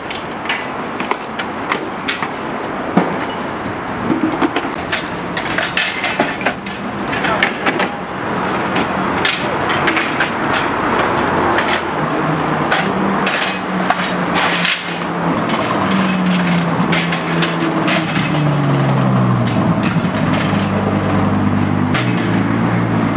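Repeated knocking and clattering of metal and plastic stall gear (crates, a stainless sink unit, folding stools) being handled and set down, over street traffic. From about halfway, a heavy vehicle's engine runs close by, its pitch rising and then sliding down.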